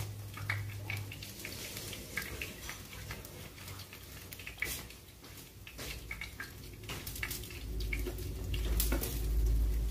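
Chopsticks beating flour batter in a ceramic bowl: scattered sharp clicks and taps. A low rumble swells over the last two seconds.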